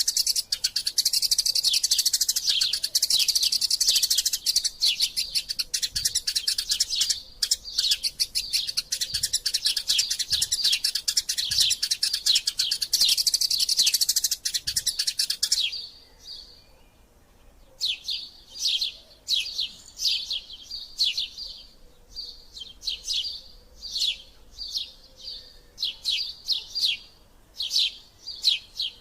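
Eurasian tree sparrows chirping in a dense, rapid, continuous chatter that cuts off abruptly about halfway through. After a short pause, separate high chirps follow at about two a second.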